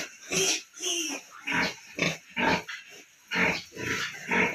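A sow and her suckling piglets grunting in a farrowing crate: a run of short separate calls, about two a second.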